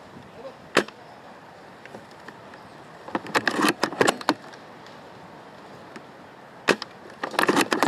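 Airsoft L96 bolt-action spring sniper rifle fired twice. Each shot is a single sharp crack, followed a few seconds later by a rattling run of clicks and knocks as the bolt is worked to recock.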